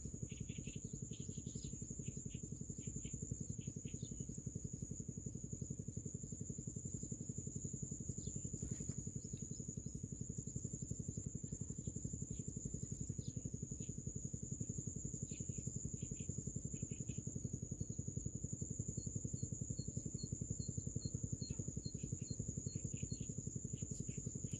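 Field insects: a continuous high thin drone with scattered short chirps, and near the end a run of evenly spaced ticks about three a second, over a steady low rumble.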